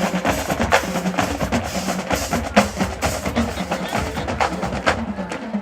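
Marching band drumline playing, with a quick run of sharp snare strokes over pitched lower drums.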